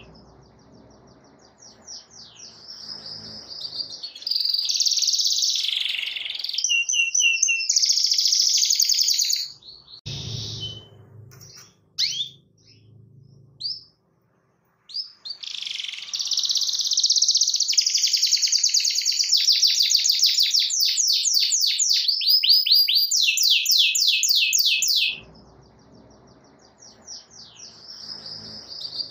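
Canary singing in long phrases of rapid, high trills and rolls. The song breaks off for a few seconds in the middle and drops away briefly near the start and the end.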